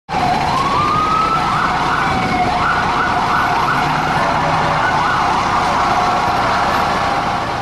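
Emergency vehicle siren wailing, its pitch sliding up and down, with a run of quick repeated rising sweeps in the middle, over a steady rushing noise. It fades near the end.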